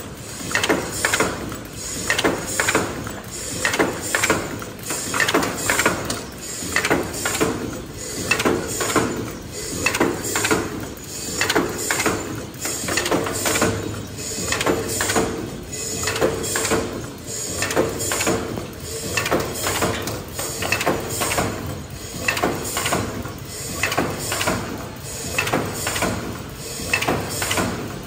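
Automatic kraft paper boat tray forming machine running, its forming stations clattering in a steady rhythm of clicks and knocks that repeats about once a second, over a faint steady hum.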